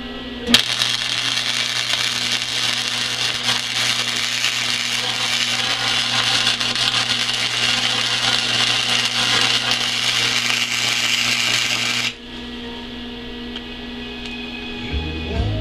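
Flux-core wire-feed welding arc crackling steadily as a bead is run around a steel end cap on square tubing. It starts with a sharp crack as the arc strikes about half a second in and cuts off suddenly about twelve seconds in.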